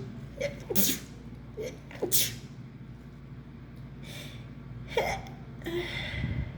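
A woman sneezing in a fit. Each sneeze starts with a short in-breath and ends in a sharp burst: two in the first couple of seconds, another about five seconds in, and a breathy one near the end. The sneezing comes with the flu and a heavily running nose.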